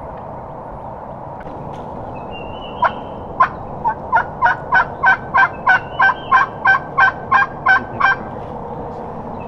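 A long series of about seventeen turkey yelps, beginning about three seconds in with a few spaced notes, then coming evenly at about four a second before stopping near the end.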